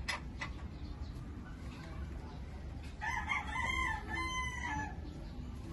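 An animal call in several pitched parts, starting about three seconds in and lasting about two seconds, with a few faint clicks near the start.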